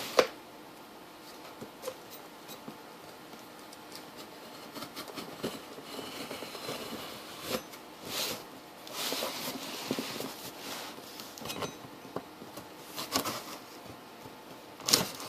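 Cardboard packaging being handled and opened by hand: scattered knocks and clicks, with a longer stretch of rustling and scraping partway through.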